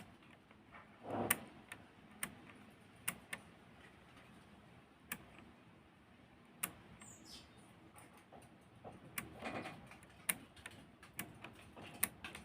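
Consul 1511 manual typewriter's keys and tab mechanism being worked by hand: irregular sharp mechanical clicks, with a couple of heavier clacks about a second in and again around nine to ten seconds in, as the freshly realigned tab rack is tested.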